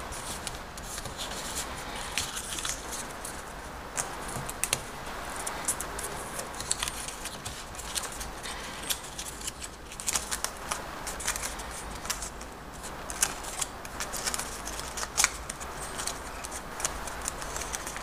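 A paper dollar bill crinkling and rustling as fingers fold and crease it, with many sharp, irregular crackles, over a steady low hum.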